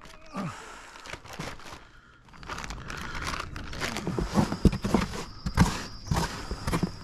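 Plastic zip-lock bags of shredded fish berley crinkling as gloved hands handle them. From about four seconds in comes a quick run of knocks and scrapes as the last of the mince is scraped out of a polystyrene box.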